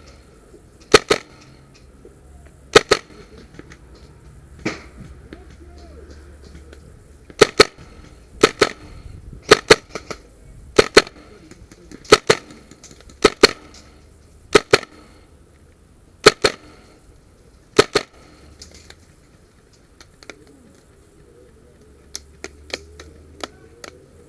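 Airsoft guns firing single shots: about a dozen sharp pops, many in quick pairs, one to two seconds apart, dying away in the last few seconds.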